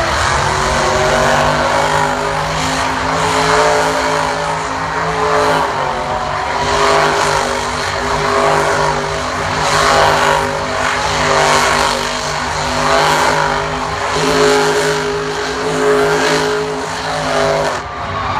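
Monster truck's supercharged V8 running at high revs while the truck spins donuts in the dirt, the sound swelling and easing about every second or so. The engine note dips briefly near the end.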